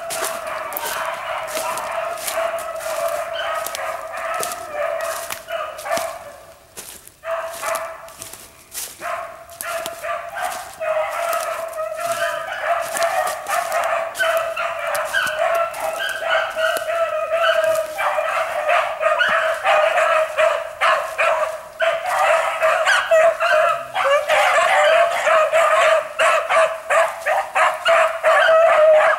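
A pack of rabbit hounds baying together in full cry on a rabbit's trail, many voices overlapping. The chorus thins out briefly about six seconds in, then builds fuller and louder in the second half.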